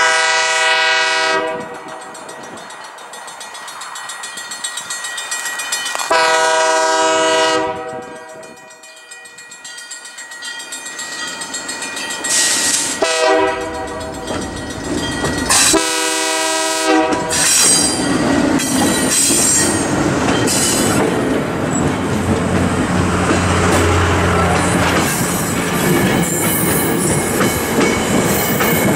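Air horn of a leading Alco C-424 diesel locomotive sounding the grade-crossing signal, long, long, short, long, as the train approaches. The locomotives then pass close with a low diesel engine rumble, followed by the passenger coaches' wheels clicking over the rail joints.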